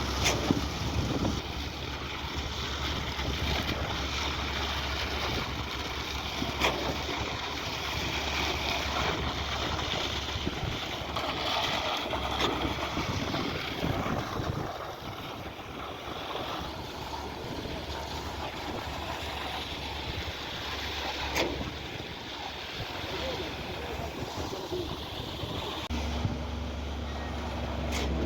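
A heavy truck engine running steadily under a wash of wind and site noise. Its low hum drops away about halfway through and comes back near the end, and a couple of sharp knocks are heard.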